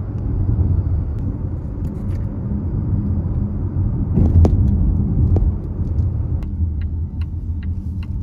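Steady low rumble of a car driving, heard from inside the cabin: engine and road noise, with a few faint clicks.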